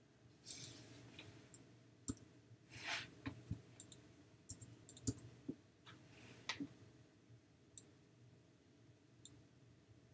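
Computer mouse clicking irregularly, faint and sharp, with a couple of short scraping sounds, about half a second in and near three seconds in.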